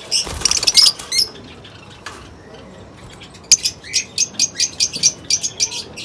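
Lovebirds giving sharp, high-pitched chirps: a short burst of calls in the first second, then a quiet gap, then a rapid run of short chirps, several a second, over the last two and a half seconds.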